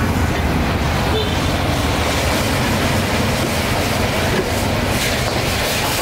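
Gas wok burner running with a steady, deep rumble while food sizzles in the wok; the sizzle grows stronger from about two seconds in.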